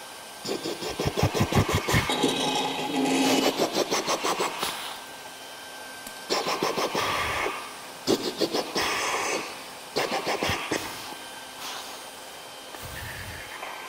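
Rough, rapidly pulsing scraping and rattling from objects worked by hand in a sound installation, in several separate bursts of a second or two with short pauses between. The longest and loudest comes in the first few seconds.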